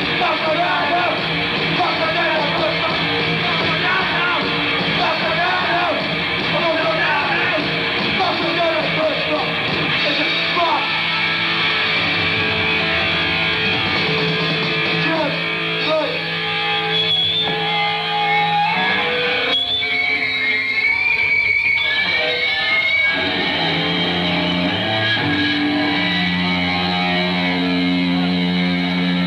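Punk rock band playing live with loud distorted electric guitar. After about ten seconds the busy playing gives way to long held guitar notes that shift pitch a few times.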